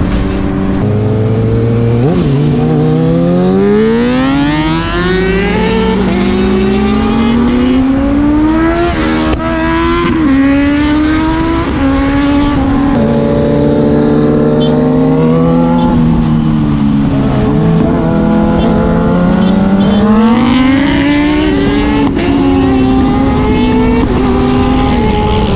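Inline-four superbike engine accelerating hard through the gears, its pitch climbing and then dropping at each shift. It eases off and falls in pitch midway, then pulls up again and holds high revs near the end.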